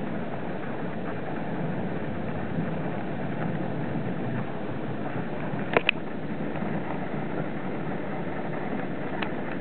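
Steady rushing noise of a thunderstorm, with two sharp clicks close together about six seconds in.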